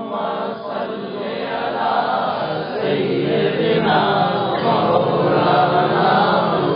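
A group of men chanting the durood refrain of a naat together, many voices in unison with no drums.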